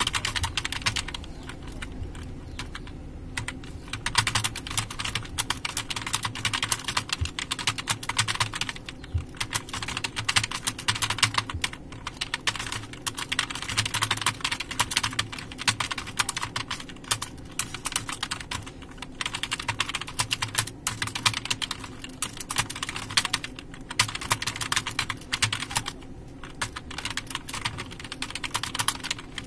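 Fast typing on a computer keyboard: a quick, steady stream of key clicks broken by a few short pauses.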